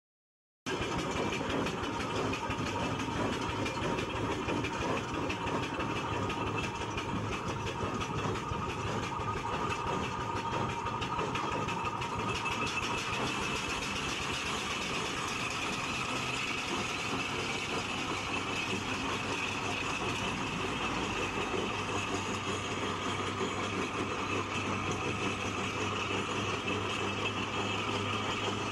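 Aveling and Porter steam road roller running steadily, a continuous mechanical noise with a faint steady whine in it. It cuts in abruptly just after the start.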